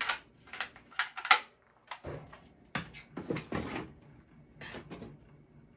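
Plastic smoke detectors and their mounting bases being handled: a run of sharp clicks and knocks, loudest about a second in, then softer clattering.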